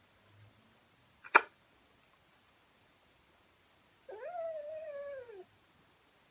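A sharp click about a second in, then a cat meowing once: one long call that rises, holds, then falls away.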